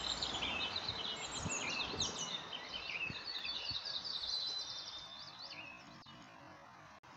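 Several songbirds chirping and trilling at once in woodland, over a low steady background noise; the song thins out about five seconds in.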